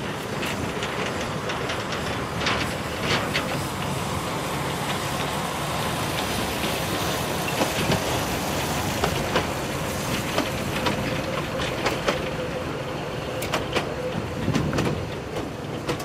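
Small narrow-gauge diesel locomotive running steadily as it moves a short rake of coaches past, with frequent short clicks and knocks from the wheels on the track.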